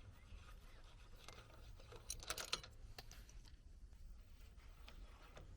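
Faint, scattered light clicks and taps, clustered about two to three seconds in: hand tools at work on a bicycle's crank during removal.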